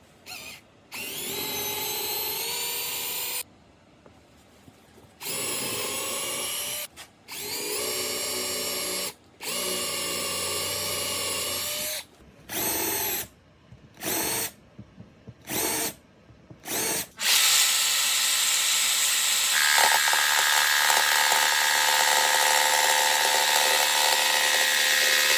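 Power drill boring into wood in a series of runs of about two seconds, each spinning up to speed, then several short trigger blips, then one long steady run of about eight seconds.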